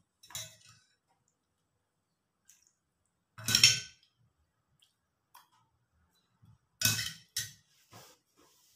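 Plates and a metal spoon clinking and knocking against each other and the tabletop as dishes are moved: a few separate clinks, the loudest about three and a half seconds in and several more close together near the end.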